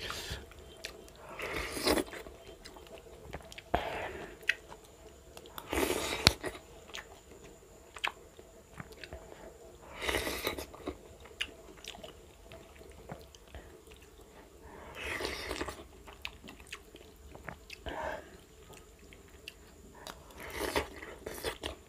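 A person chewing and biting food close to the microphone, in separate bouts every couple of seconds, with small clicks in between.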